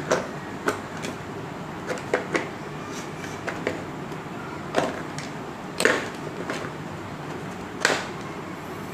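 Hand tools knocking and clicking against a moulded plastic tool case as they are pressed into and worked out of its slots: scattered light clicks, with a few louder knocks in the second half.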